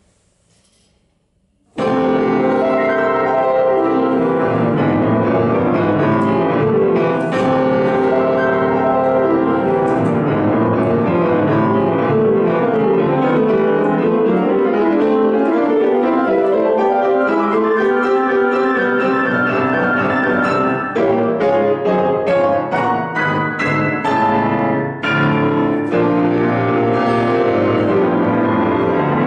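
Grand piano played solo. The playing begins about two seconds in after a short silence, then runs on densely, with the low notes climbing in the middle and a stretch of short, separated chords near the end.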